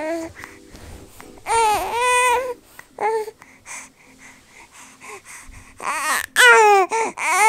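Three-month-old baby cooing and babbling in drawn-out, rising and falling vocal sounds. There is a long one early, a short one, and a louder run of coos near the end.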